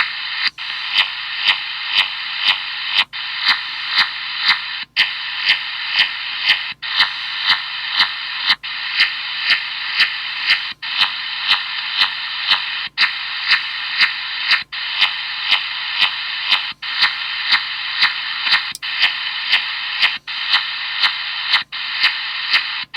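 Radio receiver tuned on upper sideband playing a steady band of static hiss pulsed by a regular beat about twice a second, an odd noise that spreads across a whole span of frequencies. The signal cuts out briefly every couple of seconds.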